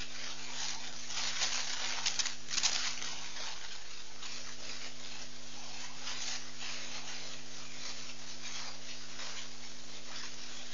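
Steady hiss and electrical hum of an outdoor webcam's microphone feed, with brief scratchy bursts, the loudest about two to three seconds in.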